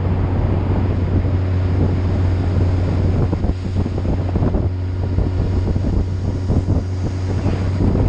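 Heavy wind buffeting the microphone over a steady low engine hum, as from a vehicle under way at a constant speed.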